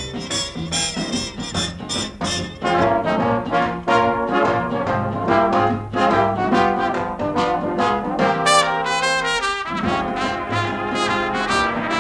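Background music featuring brass instruments, trumpet and trombone, in a jazzy big-band style with a rhythmic pulse and a quick rising run of notes about eight seconds in.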